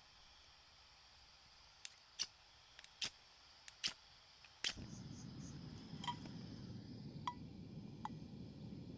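Several sharp clicks or snaps, then a sudden switch to a steady low hiss with a few short high chirps over it.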